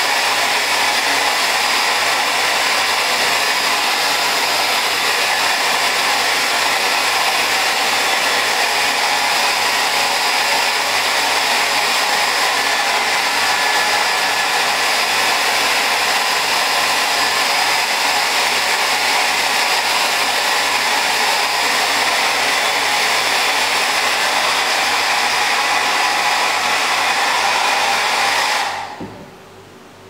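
Handheld electric hair dryer running steadily, an even rush of blown air, used to dry a poodle's coat; it is switched off about a second before the end.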